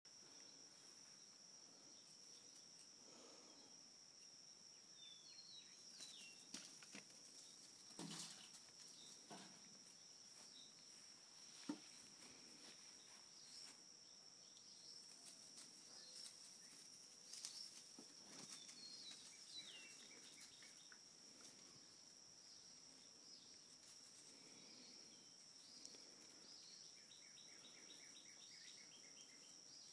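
Faint ambience: a steady high-pitched insect drone, with scattered faint bird chirps and a short trill near the end, and a few soft knocks.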